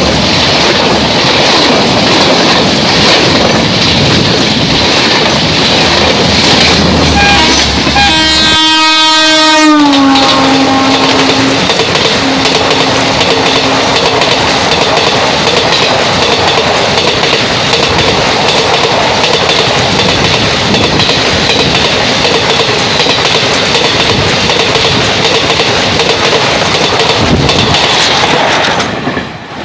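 Indian Railways express passenger trains running past close by at speed, with the steady rumble and clatter of coaches over the rails. About nine seconds in, a locomotive horn sounds for about a second and a half, dipping in pitch at its end. The sound fades out near the end.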